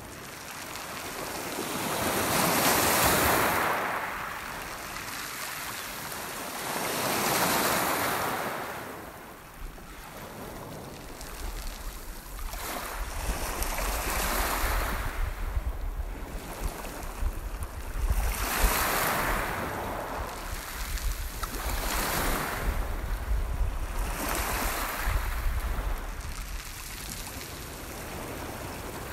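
Lake waves breaking on a pebble beach, each surge swelling and fading every few seconds. From about eleven seconds in, wind buffets the microphone with a low rumble.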